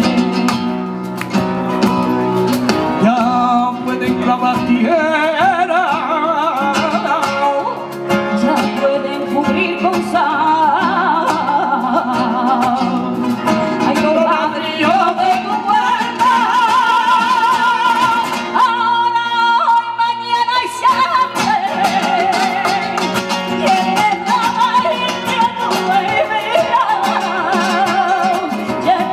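Live copla in flamenco style: a woman sings a wavering, ornamented melody over two flamenco guitars and two cajóns. About two-thirds of the way through she holds one long note while the accompaniment briefly drops away, then the guitars and cajóns come back in.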